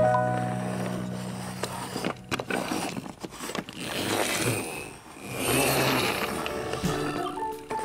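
Hard plastic wheels of a toy cement mixer truck rolling and scraping across a smooth floor as it is pushed by hand. Background music fades out in the first couple of seconds.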